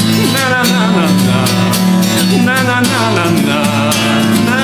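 Male voice singing a wordless "na-na-na" refrain over a band with guitar and a steady beat.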